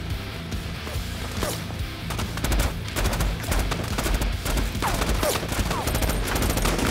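Gunfire in a staged gun battle: a pistol and other guns firing many shots in quick succession, growing denser about two seconds in, with a few short falling whines among the shots.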